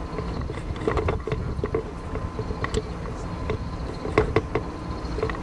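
Steady low rumble of a dive boat's engine, with scattered knocks and clicks from dive gear being handled at the rail. The loudest knocks come in a cluster near the end.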